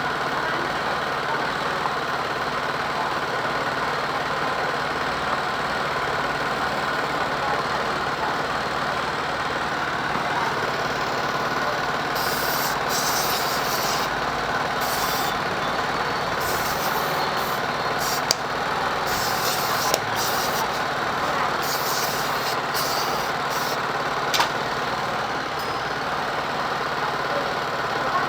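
A steady, even machine-like running noise. In the second half it is broken by several separate bursts of high-pitched hissing and a few sharp clicks.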